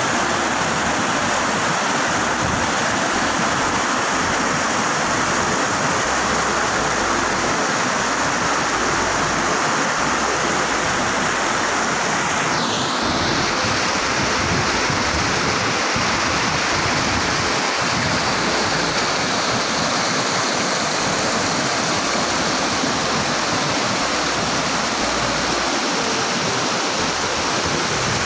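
Rocky mountain stream rushing over boulders in shallow rapids: a steady, even rush of water.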